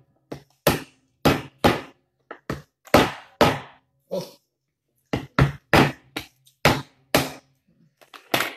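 Kitchen knife striking a cooked lobster's shell against a cutting board to crack it open: a series of sharp knocks, about two a second, with a short pause near the middle.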